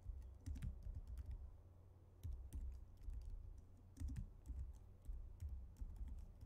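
Computer keyboard being typed on in short bursts of keystrokes, with brief pauses between the bursts.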